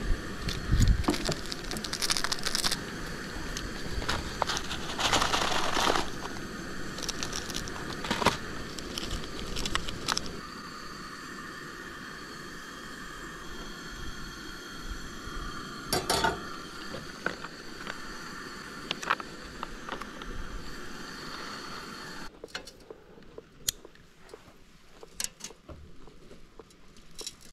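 Plastic packets of instant spicy noodles crinkling and tearing as they are opened and emptied into the tray, with a metal pot clanking as hot water is poured from it. After a sudden cut, a handful of sharp clicks from a lighter held at a charcoal chimney starter.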